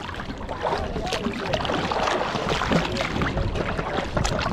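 Water sloshing and splashing close around a camera held at the surface, with many small sharp splashes from swimmers moving in the water.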